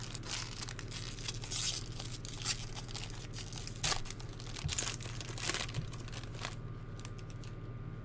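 Crinkling and tearing of a baseball card pack wrapper as it is ripped open, with irregular rustles and a few sharp clicks. It dies down after about six and a half seconds, leaving a steady low hum.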